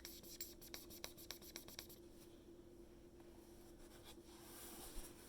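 Faint handling sounds of story materials: a run of light ticks and scratches in the first two seconds, then quieter, with a soft hiss building near the end, over a low steady hum.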